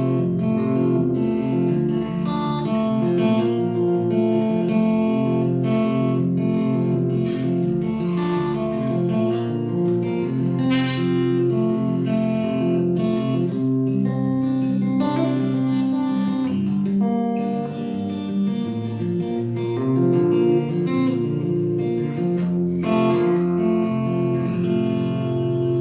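Acoustic guitar played alone as the song's instrumental outro: strummed chords mixed with picked notes, with no singing.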